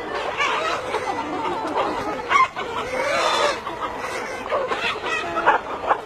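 A flock of chickens clucking and calling over one another, with louder calls about two seconds in and near the end.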